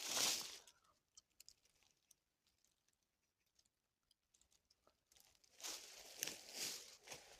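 Rustling and crunching, in a short burst at the start and a longer one from about five seconds in, with faint scattered clicks between.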